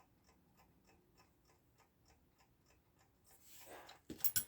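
Faint, steady ticking of a mechanical clock, about three ticks a second. Near the end, a rustle and a few sharp clicks.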